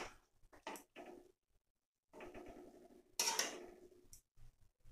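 Faint clicks and scrapes of a metal spatula stirring mango chutney in a kadhai, with a louder scrape about three seconds in and a small tick as a lid is brought over the pan near the end.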